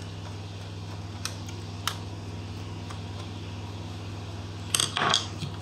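Steady low hum with a few small clicks about one and two seconds in and a short cluster of clicks near the end: a screwdriver undoing the two screws that hold the laptop keyboard.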